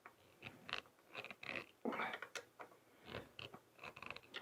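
Faint, irregular clicks and short scrapes of a hand tool on small screws and metal parts as fasteners on a 3D printer's bed carriage are tightened down.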